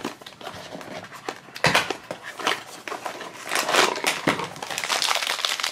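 A small cardboard blind box being opened by hand, with clicks and scrapes of the flaps and card, then a foil wrapper crinkling, getting denser and louder in the second half.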